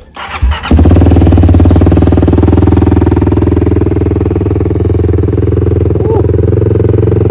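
Kawasaki KLX300's single-cylinder four-stroke engine, fitted with an aftermarket exhaust and an EJK fuel controller, being started: it catches about a second in and then idles loudly and steadily.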